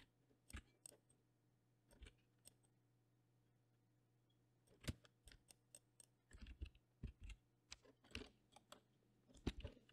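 Faint, scattered clicks of a computer mouse and keyboard keys being pressed, sparse at first and coming more often in the second half.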